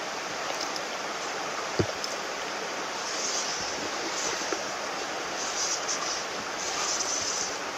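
Shallow stream water running, a steady rush, with one sharp knock about two seconds in.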